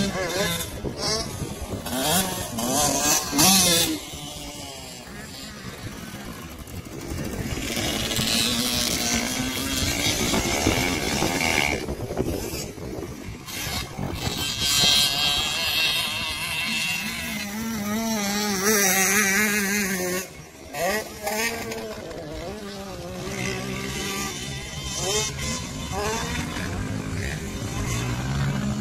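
Dirt bike engines revving up and falling off again and again as the bikes ride a motocross track, loudest about three seconds in and again near the middle.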